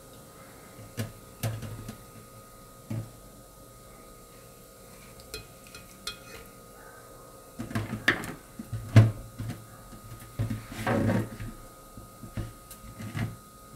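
Small metal tongs and a knife clinking and knocking against a plastic colander and a glass blender jar as blanched tomatoes are peeled and moved into the jar. Scattered short knocks, busiest and loudest in the second half.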